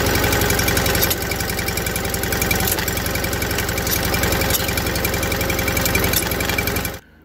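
Case Ingersoll garden tractor engine running steadily, its cooling fan spinning. The sound drops slightly about a second in and cuts off suddenly near the end.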